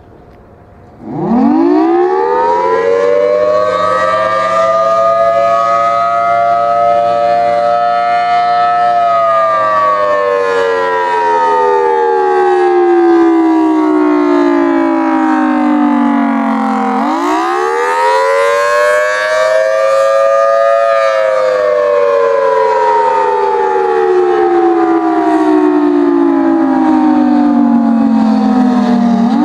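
Federal Signal Thunderbolt 1000T outdoor warning siren starting up about a second in, its pitch rising quickly to a high wail, holding, then sliding slowly down. It winds up again about halfway through and falls once more, with a steady low hum underneath.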